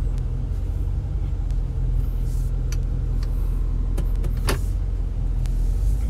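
2017 Ford F-250's 6.7 L Power Stroke diesel V8 driving, heard from inside the cab as a steady low rumble of engine and road noise. A few light clicks sound over it, the sharpest about four and a half seconds in.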